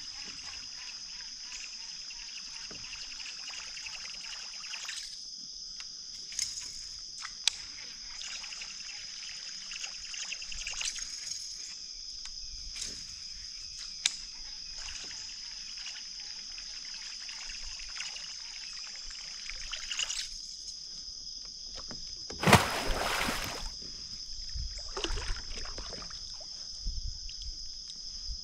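Water sloshing and trickling against a kayak on the lake, with a few small knocks and a louder splash about 22 seconds in. A steady high-pitched hum runs underneath.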